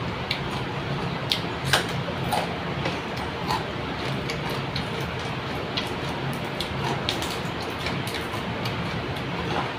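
Scattered small clicks and crackles of eating by hand: cooked river prawns being handled and their shells pulled apart, with chewing, over a steady low hum.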